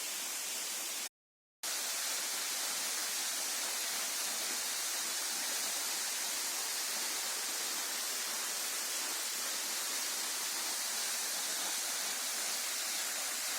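Falling water of Sa Pok Waterfall, heard up close, rushing steadily with a strong high hiss. The sound cuts out completely for about half a second about a second in.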